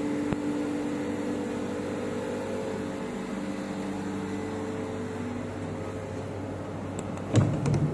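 ÖBB electric passenger train standing still, its onboard equipment and ventilation giving a steady hum with a few held tones. A short run of clicks and a louder knock comes about seven seconds in.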